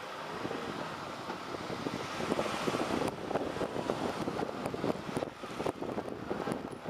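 Moving city bus heard from inside: steady road and engine noise. From about two to three seconds in it grows louder, with an irregular clatter of rattles and knocks.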